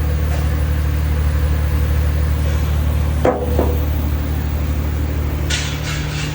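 Cummins 6LTA inline-six diesel engine idling steadily. There is a brief knock about three seconds in and a few short hisses near the end.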